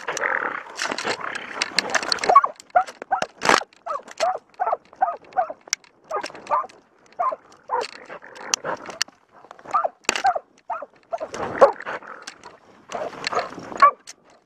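Plott hound barking over and over in short, rapid barks, a few a second, as it runs through brush. Brush scrapes past during the first two seconds, and there is one sharp knock about three and a half seconds in.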